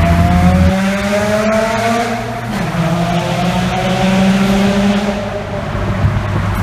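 Bridgeported 13B rotary engine with a single turbo and turbo-back exhaust, running loud under hard acceleration. Its pitch rises steadily, breaks with a short dip in level about two and a half seconds in, then climbs again and dips once more around five seconds.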